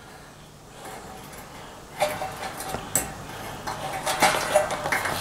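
Multimeter probe tips clicking and scraping against the metal terminals of a Samsung dryer heating element as its coil is tested for continuity. The clicks start about two seconds in and come in a short irregular run. The meter reads nothing: the coil is burnt out, open.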